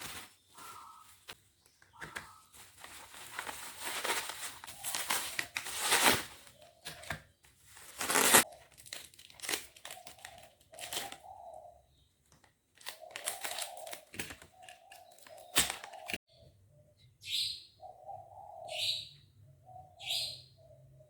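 Parcel packaging crinkling and rustling, with short tearing strokes, as a package is unwrapped by hand. Near the end the sound settles into a few separate short rips about a second and a half apart.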